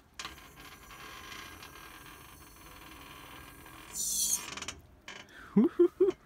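Homemade truck-bed crane creaking steadily for about four seconds as its boom and load swing, followed by a short hiss about four seconds in. Near the end come four short, loud pitched creaks.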